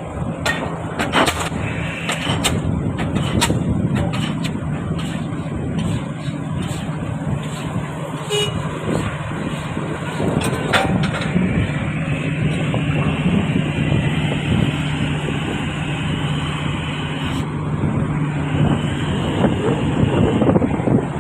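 DD 55 diesel pile hammer striking a spun concrete pile, with sharp blows about once a second over the steady running of the piling rig's engine. A high steady tone joins in about halfway through and stops shortly before the end.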